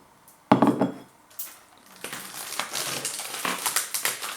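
Handling of a plastic seafood pack: a sharp knock about half a second in, then steady crackling and rustling of the packaging being opened.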